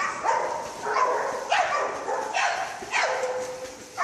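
A dog barking over and over, roughly one to two barks a second, while water splashes around it.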